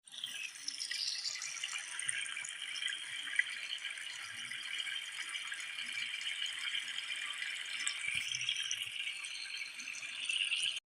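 A steady, dense rattling, like many small hard bits shaken together, that cuts off suddenly near the end.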